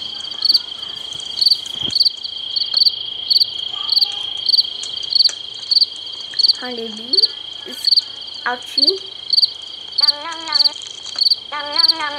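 Video game night ambience: crickets chirping in a steady rhythm of about one and a half chirps a second over a constant high-pitched insect drone. A few short wavering pitched sounds come in over it near the end.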